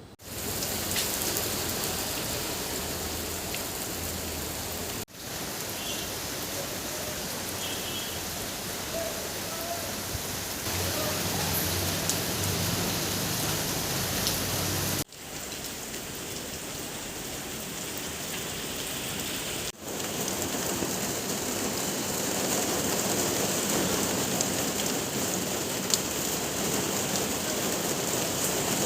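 Steady hiss of falling rain, cut off abruptly and resuming three times.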